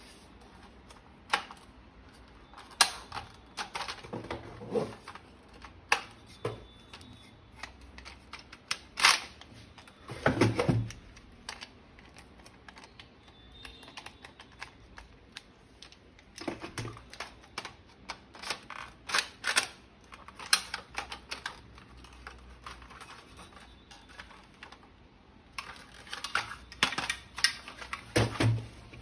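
Irregular clicks, taps and knocks of hard plastic toy gun parts being handled and fitted together, coming in clusters with short pauses between them.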